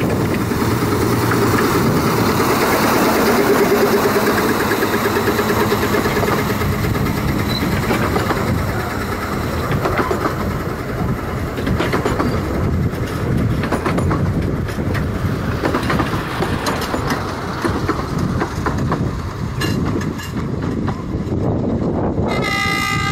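A 15-inch gauge miniature railway train passing close by, its locomotive engine running and its wheels clicking over the rail joints. Near the end the locomotive sounds its horn, a steady chord of several tones.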